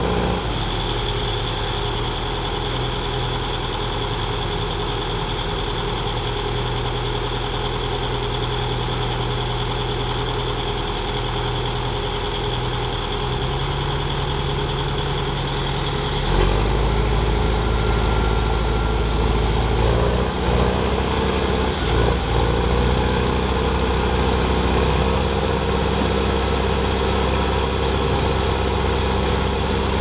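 Heavy diesel engines of logging machines running steadily on a muddy slope. About halfway through, the low engine note grows louder and changes pitch, as the engines are put under more load.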